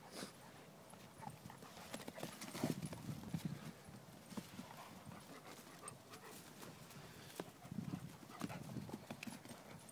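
Two flat-coated retrievers chasing and wrestling on grass: irregular thuds of running paws on turf and scuffling, busiest about two and a half seconds in and again near the end.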